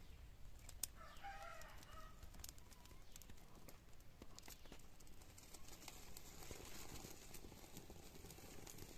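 A lighter clicks about a second in, then dry leaves crackle faintly as they catch fire and burn while they are pushed into a clay stove to light it.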